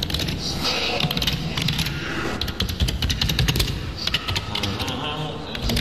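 Rapid, irregular clicking and tapping close to the microphone, like typing on a computer keyboard.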